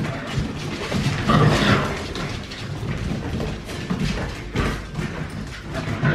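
Six-week-old Siberian Husky puppies scampering and tussling on a hard vinyl floor: scrabbling paws, clicking claws and soft thuds as they bump, with a short puppy squeal about a second and a half in.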